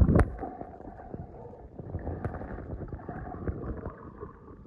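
Muffled underwater sound picked up by a camera held below the surface: a low rumbling wash of water with scattered clicks and knocks, a louder knock just after the start, growing fainter toward the end.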